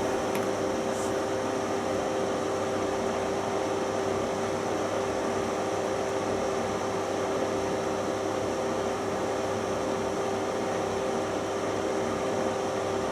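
AKO H 260/4 bathroom fan heater running steadily: the rush of blown air with a steady motor hum and whine.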